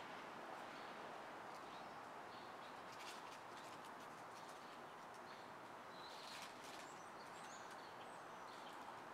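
Faint, steady hum of distant city street traffic, with small birds chirping briefly now and then, mostly around three and six seconds in.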